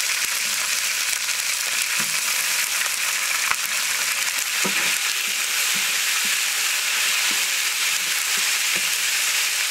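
Hot oil sizzling steadily in a large metal cooking pot, with cumin seeds, dried red chillies and curry leaves frying in it. Ginger-garlic paste is dropped in and stirred with a metal ladle.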